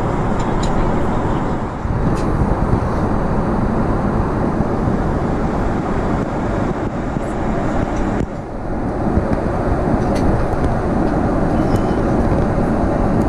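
Steady cabin noise of a Boeing 777-300 airliner in flight: an even rush of engine and airflow noise, with a few faint clicks.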